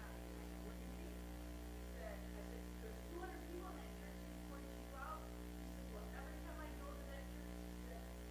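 Steady electrical mains hum, with faint, indistinct voices now and then underneath it.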